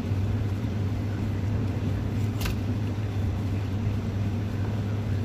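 Steady low machine hum, with one faint click about two and a half seconds in.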